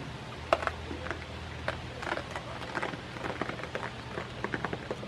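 Goats crunching and chewing treats taken from a hand: a run of irregular, crisp crackles and clicks.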